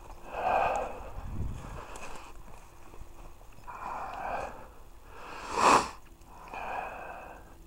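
A person breathing heavily close to the microphone: several separate breaths a second or two apart, one of them a louder, sharper breath about two-thirds of the way through.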